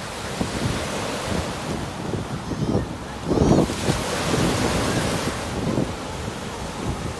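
Ocean surf breaking and washing up a beach, with wind buffeting the microphone. A strong low gust about three and a half seconds in is the loudest moment, followed by a brighter hiss of wash.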